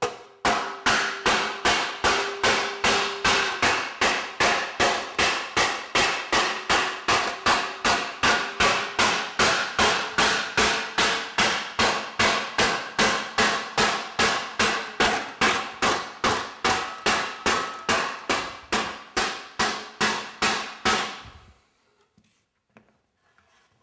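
Leather-faced oak slapper striking a shaped aluminum panel in a steady rhythm of about three blows a second, the panel ringing after each blow, stopping near the end. The blows smooth out knots and bulges in the aluminum without stretching it.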